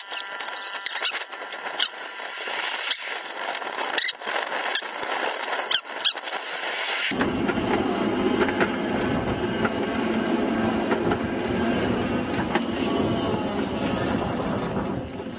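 Steel wheels of a 7.5-inch gauge miniature train squealing, with sharp clicks over rail joints and switch points. About seven seconds in, this cuts to a steady low rumble of the train running along the track.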